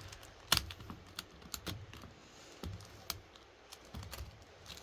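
Irregular, sharp plastic clicks and clacks from a GAN i Carry 4 smart speedcube being handled and opened up to expose its core and pieces. The sharpest click comes about half a second in.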